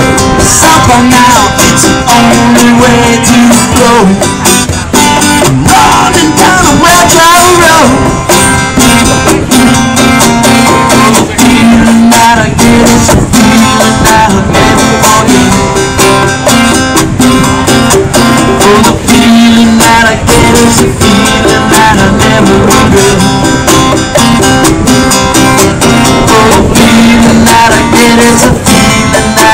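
Acoustic guitar and conga drums playing a song live through PA speakers, an instrumental passage with no lyrics.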